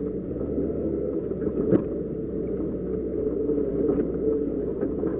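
Doosan DX140 excavator's diesel engine running steadily, heard from inside the cab as the bucket works the dirt road, with one sharp clank just under two seconds in.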